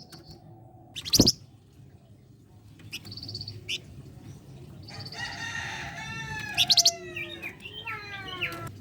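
Flamboyan songbird singing in short, separate phrases: a sharp loud note about a second in, brief high chirps around three seconds, then a dense call followed by a series of quick falling sweeps near the end.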